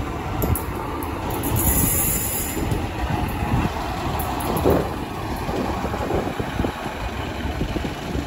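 A Northern Class 155 diesel multiple unit moving past along the platform: a steady rumble of its underfloor diesel engines and its wheels on the rails, with a louder spell about two seconds in and a brief loud clatter just under five seconds in.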